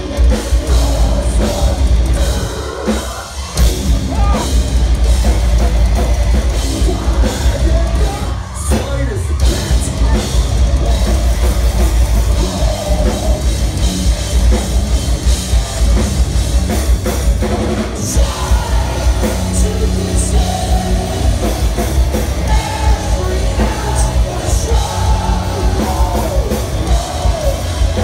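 Live metalcore band playing at full volume: distorted guitars and bass, a pounding drum kit, and a vocalist singing and screaming over it, heard from inside the crowd with a heavy, booming low end.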